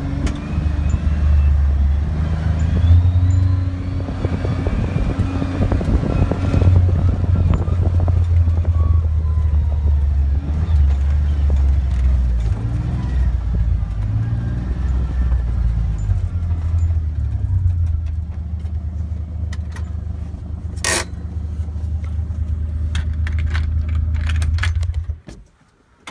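Kawasaki Mule Pro FXT side-by-side's three-cylinder engine running steadily as it drives a rough dirt trail, with clicks and rattles from the vehicle. The engine sound cuts off abruptly near the end.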